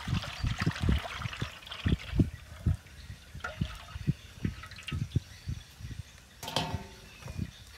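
Cooking oil poured from a stainless-steel bowl into a large wok, splashing in an uneven stream that stops about five and a half seconds in.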